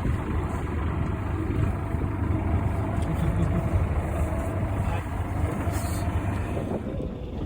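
Steady low rumble of a small fishing boat's engine idling at sea.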